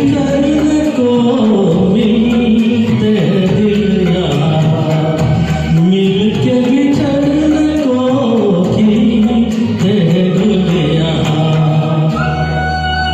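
A man singing a Hindi film song over a karaoke backing track, the melody gliding smoothly across long held notes above a steady, even bass beat.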